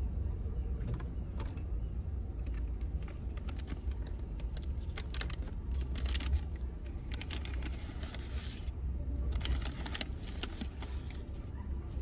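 Plastic bottle and its wrapping handled: a run of crinkling and clicking from about four seconds in until near the end, over a steady low rumble.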